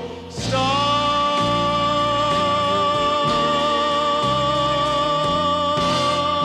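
A male singer holds one long final note over an orchestral accompaniment whose chords shift underneath, the held climax at the end of a big ballad.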